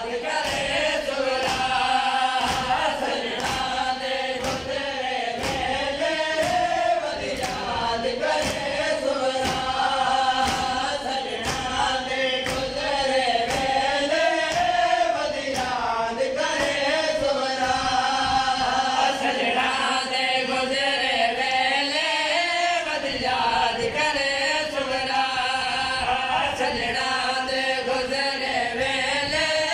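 Men chanting a noha, a Shia lament, in unison, over a steady rhythm of open-handed chest beating (matam), with about one strike a second.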